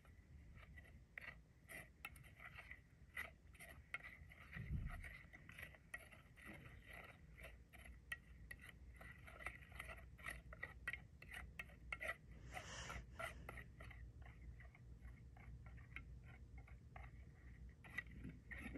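Faint scraping and clicking of a spoon stirring chicken, spices and oil in a plastic bowl, played back through a screen's speaker. There is a soft low thump about five seconds in.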